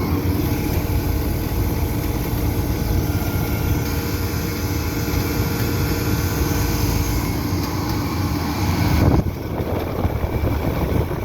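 American Standard 3-ton central air conditioner condensing unit with a Climatuff compressor, running: condenser fan blowing over a steady compressor hum. The unit is working hard under load.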